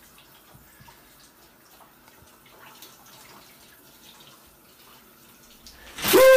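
Faint steady hiss of water running in a small bathroom, with a few soft clicks and rustles. About six seconds in, loud yelling bursts in suddenly.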